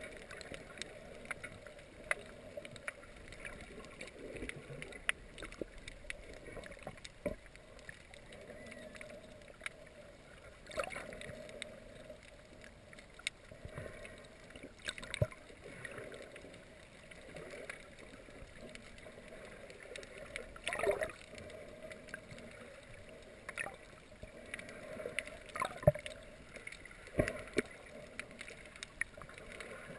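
Underwater sound of snorkeling heard through a camera held just below the surface: a steady muffled water rush with many sharp scattered clicks and a few louder swishing, gurgling surges of moving water and bubbles.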